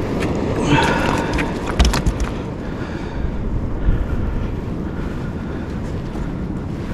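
Wind buffeting the microphone on the open ocean, a steady low rumble, with a short cluster of sharp clicks and knocks about one to two seconds in.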